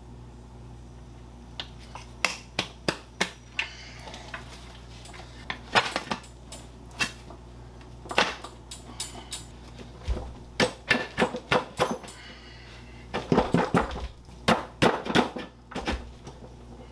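Irregular metal clinks and clanks as the metal rim of an old wood-spoke car wheel is handled and worked loose around the valve stem, with a few dull thumps in the second half as the tyred wheel is moved and turned over.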